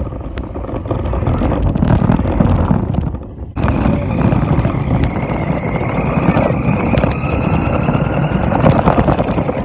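RC car driving over rough ground, heard from the phone riding on it: a loud rattling rumble of the wheels and chassis. The sound drops out briefly about three seconds in, and a steady motor whine runs on top after that.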